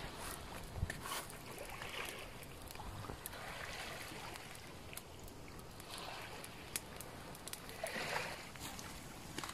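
Small waves washing in about every two seconds, with a few sharp clicks.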